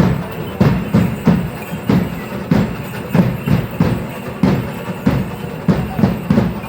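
Drums beating a steady, driving dance rhythm, about two to three strokes a second.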